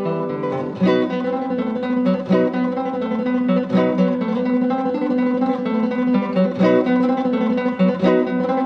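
Background music: a plucked acoustic guitar playing a quick run of notes and strums.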